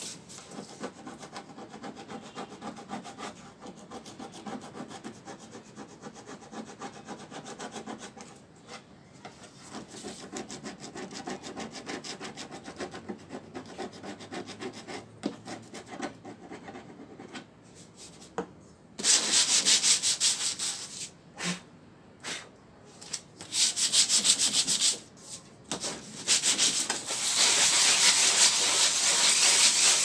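Hand sanding of a refrigerator's painted sheet-metal top with sandpaper, in quick back-and-forth strokes. The rubbing is fairly soft at first. From about two-thirds of the way in it turns much louder and hissier, stopping briefly a couple of times.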